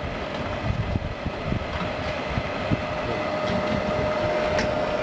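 The electric gear motor and worm gearbox of a continuous fryer running, driving its stainless-steel mesh-belt conveyor. It makes a steady mechanical hum with a thin whine that grows slightly louder.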